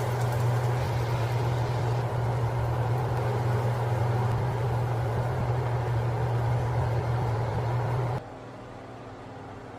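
Steady low motor hum with a rushing noise, like a running fan, that cuts off abruptly about eight seconds in, leaving a much quieter hum.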